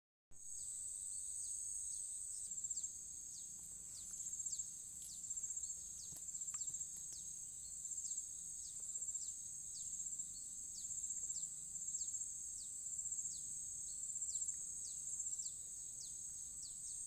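Insect chorus: a steady high shrill buzz, with short falling chirps repeating about every half second.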